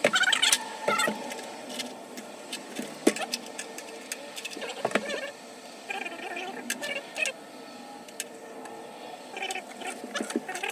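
Scattered clicks, clinks and knocks of hand tools and parts being handled during plumbing work, with a few brief snatches of low voice.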